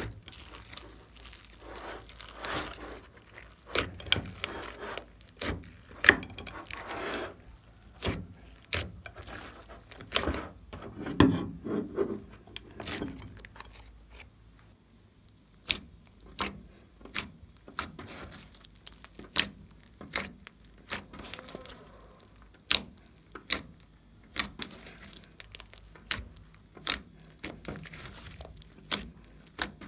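Hands kneading, poking and stretching a large mass of glossy slime mixed with foam beads: sticky squishing and crinkling with sharp clicking pops, coming about once a second in the second half.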